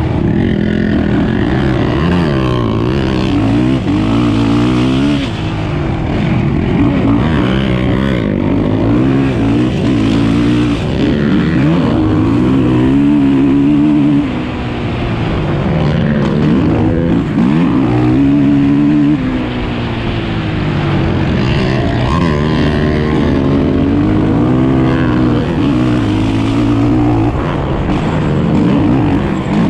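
450-class racing quad's single-cylinder four-stroke engine heard from on board, revving up and falling back again and again as the rider accelerates, shifts and backs off for corners on a dirt motocross track.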